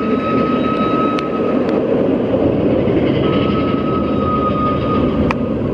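Mine-train roller coaster rolling along its track: a loud, steady rumble with a thin high whine over it that drops out for a moment in the middle, and a few sharp clicks.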